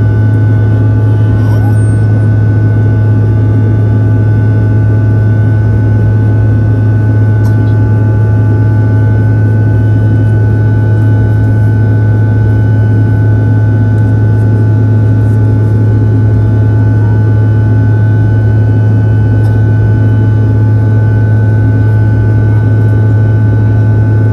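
Cabin noise of a Bombardier CRJ-900 in flight, heard from a window seat: the steady drone of its two rear-mounted GE CF34 turbofans and the rush of air past the fuselage. A strong low hum sits under a few faint, steady whines.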